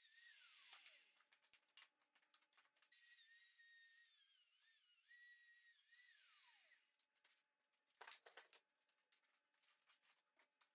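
Faint whine of a small power tool's motor: it winds down in the first second, starts again about three seconds in, and slides down in pitch as it coasts to a stop around six to seven seconds in. Scattered light clicks and knocks in between and after.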